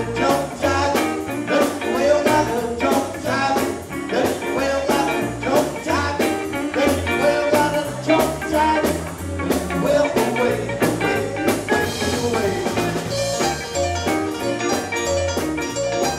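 Live old-style R&B/soul band playing: a drum kit keeping a steady beat under electric bass and keyboard.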